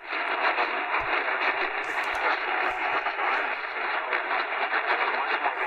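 Tecsun PL-398BT portable radio tuned to 680 kHz AM at night, its speaker playing a steady hiss of static from a weak, distant signal. The audio cuts out for a moment at the very start as the radio tunes in.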